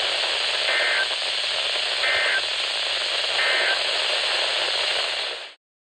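Steady static hiss on a weather-radio broadcast, with three short Emergency Alert System end-of-message data bursts (NNNN), each a fraction of a second of rapid two-tone warbling, about a second and a half apart, marking the end of the alert. The audio cuts off suddenly near the end.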